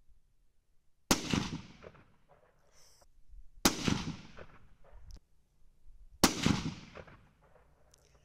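Three rifle shots about two and a half seconds apart, each a sharp crack followed by a rumbling tail that fades over about a second.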